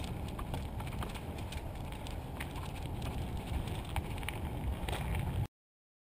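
Mountain bike riding along a dirt trail: a steady low rumble with frequent small clicks and rattles from the bike and tyres on the ground, cutting off suddenly near the end.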